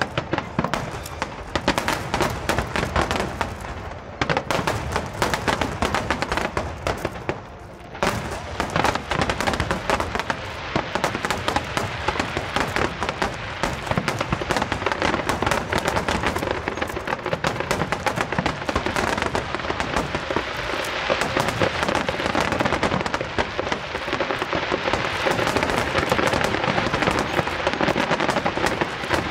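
Aerial fireworks display: a rapid, continuous barrage of bangs and crackling that eases briefly about eight seconds in, then thickens into a dense crackle toward the end.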